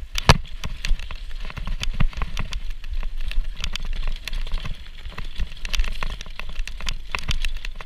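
Mountain bike rattling and clattering over cobblestones and a rough, snowy trail: a dense, irregular run of sharp knocks and rattles over a low rumble of wind on the action camera's microphone.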